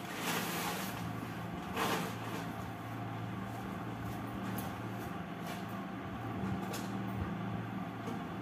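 Plastic bag rustling as it is pulled off a box, loudest at the start and again about two seconds in, then a few light knocks as wooden pieces and a box are handled. A steady low hum runs underneath.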